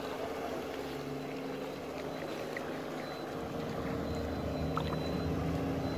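Engine running steadily, with a drone whose pitch shifts a little about a second in and again past four seconds.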